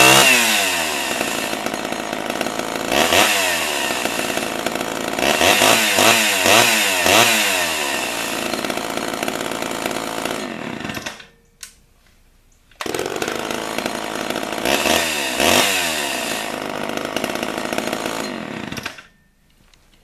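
Large old Homelite chainsaw's two-stroke engine running and being revved up and down several times. It stops about eleven seconds in, starts again a couple of seconds later, revs a few more times, and stops shortly before the end.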